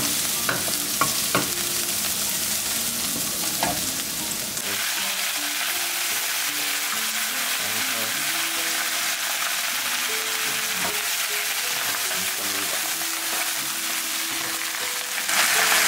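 Minced garlic sizzling in hot oil in a nonstick wok, with a few clicks of a wooden spoon against the pan. About four seconds in, this gives way to bok choy stir-frying, a denser, brighter sizzle as the greens are tossed with Shaoxing wine and soy sauce, and it grows louder near the end.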